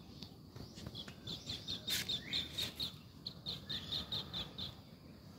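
Parrot chirping: a quick run of short, high chirps, about three or four a second, with one sharp click about two seconds in.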